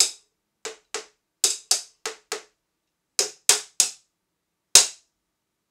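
Drumstick striking a neoprene-padded Alesis Surge electronic crash cymbal, about eleven short, dull clacks in an uneven rhythm with no ring. The last hit, near the end, is the loudest.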